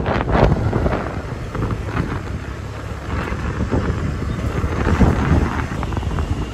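Wind rushing over the microphone on a moving motorcycle, a continuous low rumble with engine and road noise underneath; it eases a little near the middle and swells again about five seconds in.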